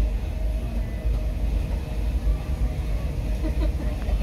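Water from a hose running into a steam locomotive's tender tank as it is topped off, a steady low rush and rumble.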